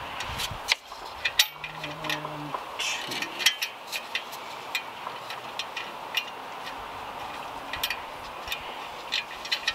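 Scattered small clicks and knocks of hands threading nuts onto the intake mount's bottom feet, with parts clinking against the engine bay. The clicks come irregularly, not at any steady pace.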